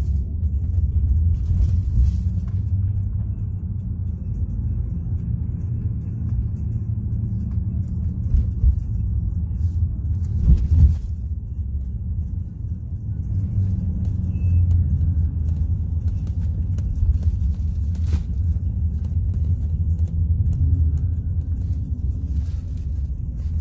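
Steady low rumble of a car driving through city streets, heard from inside the cabin, with a couple of brief knocks.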